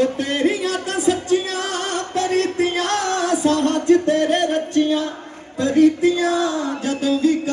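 A man singing long, wavering held notes in a melismatic style, breaking off briefly about five and a half seconds in.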